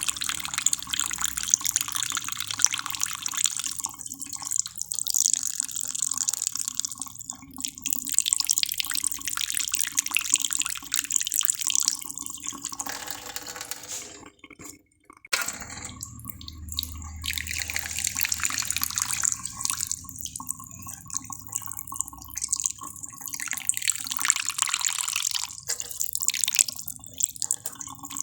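Water running and splashing, a continuous hissing patter that breaks off for about a second about halfway through.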